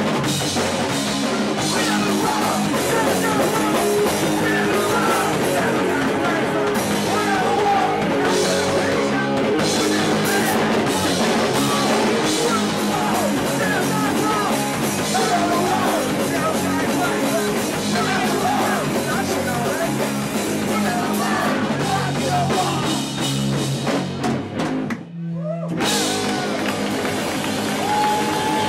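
Live hardcore punk band playing loud, with drum kit, guitar and a singer on a microphone. The music drops out for a split second near the end and comes straight back in.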